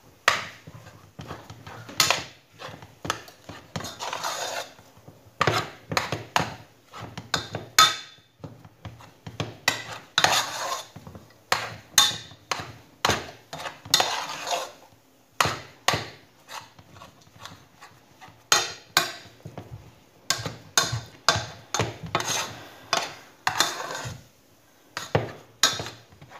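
Metal spoon knocking and scraping against an aluminium saucepan as thick choux dough is beaten over the heat, with irregular sharp knocks and short scraping strokes.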